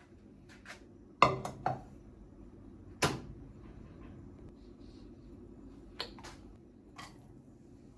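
A series of light knocks and clicks from household items being handled and set down, the loudest a sharp knock about a second in and another about three seconds in, with lighter clicks near the end. A faint steady low hum runs underneath.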